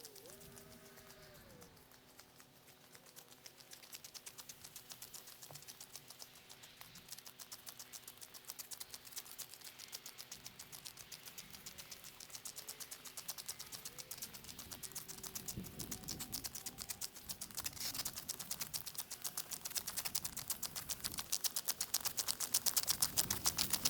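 A homemade ice resurfacer dragged across pond ice, giving a rapid, even ticking that grows steadily louder as it comes closer.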